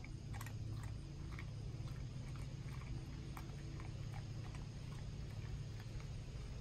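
Golden retriever crunching and chewing Wheat Thins crackers picked up off concrete, in short irregular crunches. A steady low hum runs underneath.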